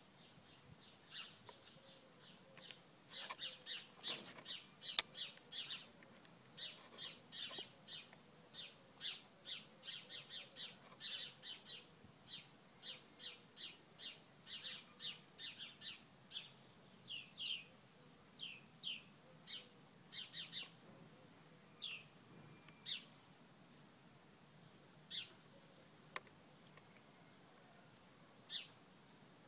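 Small birds chirping: a dense run of short, high chirps through the first half, thinning to scattered single chirps later.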